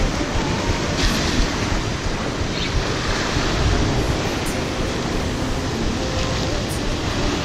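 Ocean swell surging and washing over a rock ledge, with wind buffeting the microphone.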